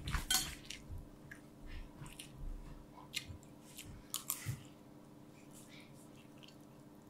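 Metal spoon scraping and clicking on a plate of rice, with chewing. There are several short scrapes and clicks in the first half, then it goes quieter.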